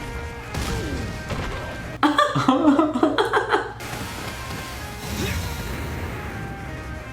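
Anime episode soundtrack: quiet background music, then about two seconds in a sudden loud, harsh burst of fight sound effects lasting under two seconds.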